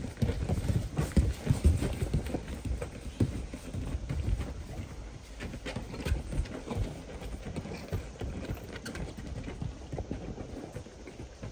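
Paws of two large dogs, a golden retriever and a malamute, thudding irregularly on a wet trampoline mat as they trot around; the thuds are heavier in the first few seconds and softer toward the end.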